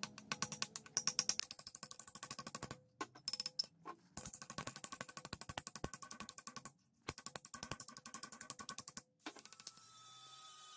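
Steel hammer striking an old car brake pad on a steel anvil, knocking the friction material off its backing plate. It comes in rapid runs of sharp strikes with a slight ring, broken by short pauses. Near the end the hammering stops and a steady hum with high tones rises.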